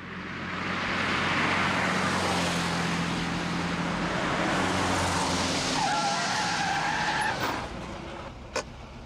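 Car on the road, its engine and tyre noise swelling in the first second, holding, then easing off near the end. A steady high tone at two pitches sounds for about a second and a half shortly before it fades.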